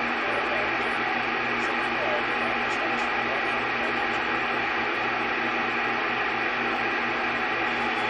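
CB radio receiving on the 27 MHz band with the squelch open: a steady hiss of static with a hum running through it.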